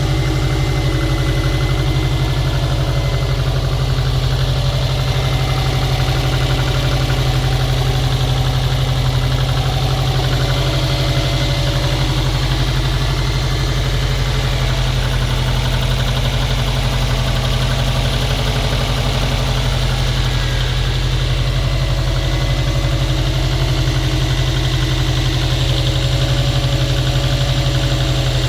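Subaru WRX flat-four boxer engine idling steadily from cold, with a knock in its running that shows up while the engine is cold.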